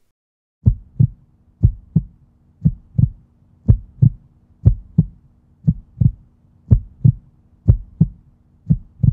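Heartbeat sound effect on the end card: a steady 'lub-dub' of paired low thumps, about one pair a second, over a faint low drone.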